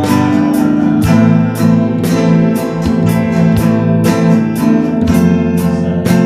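Acoustic guitar strummed in a steady rhythm, with chords ringing between the strokes.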